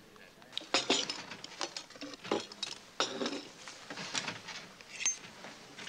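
China coffee cups, saucers and spoons clinking and knocking on a café table: a string of irregular light clicks and clatters, one giving a brief high ring about five seconds in.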